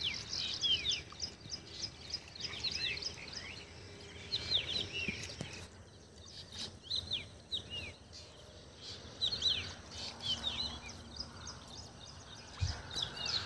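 Small birds chirping: repeated clusters of short, quick downward-sweeping calls, coming every couple of seconds over a faint steady background hiss.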